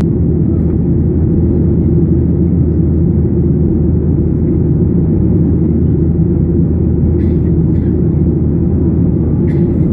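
Steady roar of a Boeing 737's jet engines and rushing air, heard inside the cabin during the climb after takeoff. A faint tick or two near the end.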